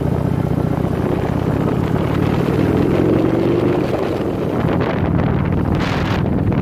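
Motorcycle engine running steadily while riding, its pitch rising slightly about three seconds in, with wind noise on the microphone.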